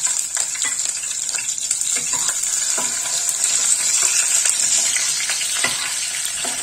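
Hot oil sizzling in a kadai as green chillies, cumin seeds and chopped ginger fry, a steady high hiss, with a steel ladle stirring and scraping against the pan in scattered short clicks.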